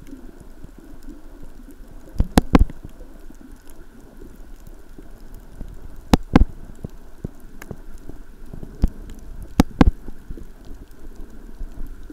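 Muffled underwater sound picked up by a camera below the surface: a low steady rumble of water, broken by about ten sharp clicks, several coming in quick pairs.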